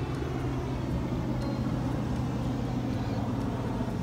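Hot air balloon's propane burner firing overhead: a loud, steady roar with a deep hum underneath.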